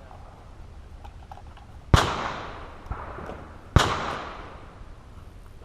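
Two gunshots about two seconds apart, each sharp crack trailing off in a long echo.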